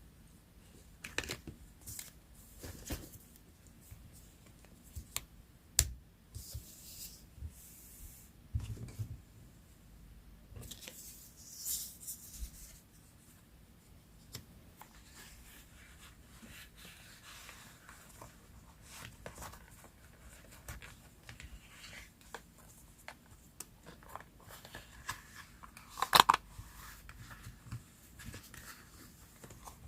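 Paper work at a desk: scissors snipping through paper, with paper rustling and tearing in short irregular swishes and small clicks. One sharp, loud click comes near the end.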